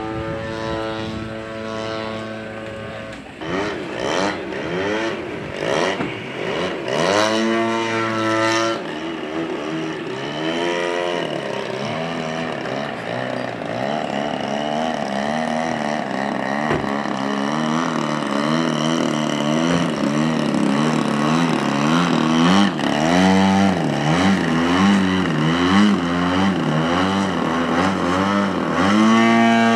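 Model aircraft's GP 76 engine and propeller running through aerobatics: a steady tone for the first few seconds, then the pitch swoops up and down again and again as the throttle is opened and closed.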